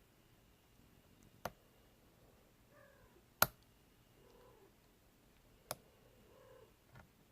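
A lock pick working the pins of an ASSA Ruko 2 padlock core, giving four sharp clicks about two seconds apart. Faint, short pitched sounds come between the clicks.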